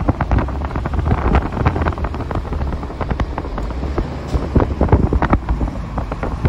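Wind buffeting the microphone in irregular gusts over the low rumble of a CN freight train of covered hopper cars rolling past.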